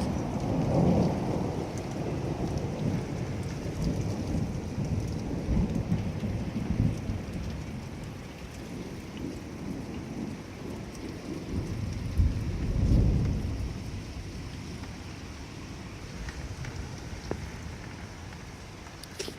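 Storm wind gusting and buffeting the microphone: a rumbling rush that swells and fades in gusts over a steady hiss, strongest at the start and again about two thirds through.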